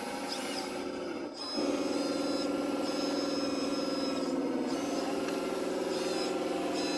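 Radio-controlled model construction machine working: a steady engine-like drone that gets louder about a second and a half in, with high thin whines that come and go several times.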